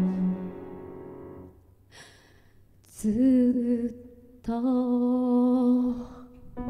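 A woman humming wordlessly into a microphone after a chord dies away. She holds two long notes: the first slides up into pitch about three seconds in, and the second starts about a second and a half later and is held steady.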